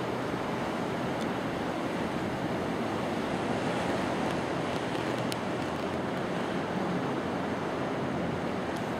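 Steady rushing noise of surf, with wind on the microphone, unbroken throughout, and one faint click about five seconds in.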